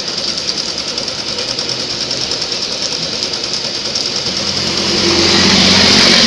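Singer sewing machine running and stitching fabric in a decorative feather stitch, its needle clattering in a rapid, even rhythm; about four and a half seconds in it runs faster and louder.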